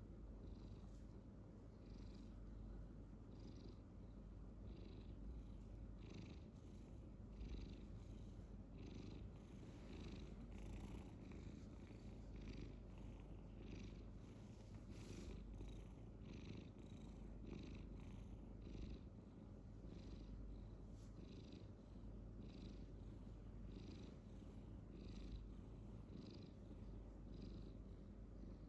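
Domestic cat purring steadily and quietly, a continuous low rumble with a soft breathy pulse about once a second as it breathes in and out.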